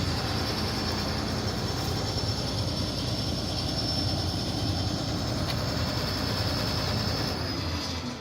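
John Deere 9770 combine harvester running, a steady diesel rumble with a high whine over it, starting to fade near the end.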